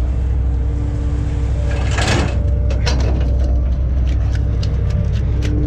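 Fishing boat's engine drones steadily with a constant hum over it, while a lobster pot comes over the rail: a brief rush of noise about two seconds in, then a run of sharp knocks and clatter as the pot is brought aboard.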